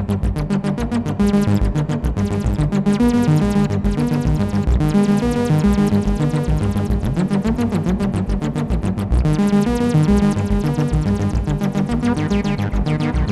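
Behringer TD-3-MO monophonic bass synthesizer playing a fast arpeggiated pattern of short, evenly repeating notes through effects.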